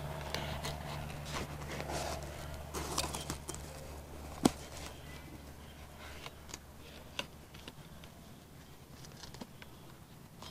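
Faint rustling and small clicks of a synthetic lamb's wool bonnet being stretched over the foam pad of a cordless buffer polisher, with one sharper click about four and a half seconds in. Underneath is a low steady hum that fades out about halfway through.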